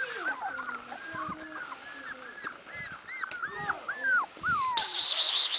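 Puppy whimpering: a steady run of short, high whines that rise and fall, several a second. About five seconds in, a loud, high rasping buzz cuts in for about a second.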